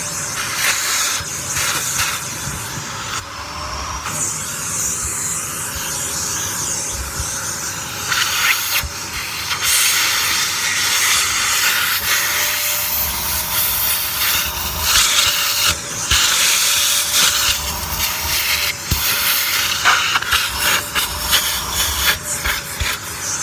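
Vacuum cleaner running with a loud rushing hiss of suction that swells and fades unevenly as the nozzle is worked over a shoe, with a faint steady motor whine underneath.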